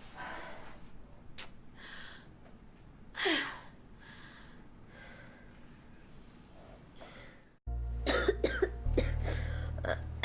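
A person sneezing and coughing: one loud sneeze about three seconds in among softer sniffs and coughs, then a quick run of short bursts near the end over a low hum.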